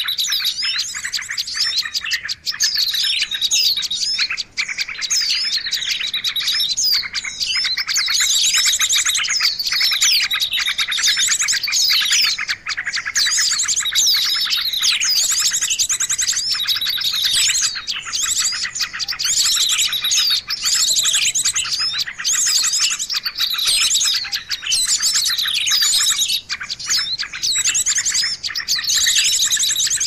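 Bird-lure recording of small songbirds calling over one another: a dense, continuous mix of high chirps, fast trills and quick falling whistles, with the same phrases coming back every couple of seconds.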